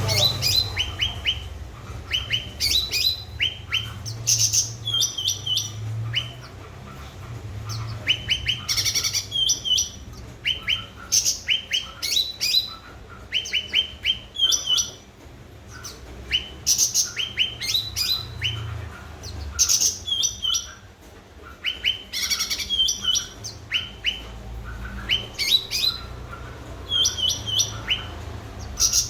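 Cucak ranting songbird singing vigorously: short bursts of quick, high chirping notes, repeated every second or two.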